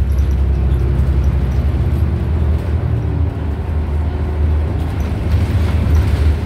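Cabin sound of a New Flyer XDE40 diesel-electric hybrid bus driving: a steady low rumble from its Cummins ISL9 diesel and drivetrain, mixed with road noise. A faint higher tone joins it for a couple of seconds about two and a half seconds in.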